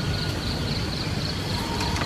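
Insects chirping high in a steady pulsing rhythm, about four pulses a second, over a steady hiss of rain.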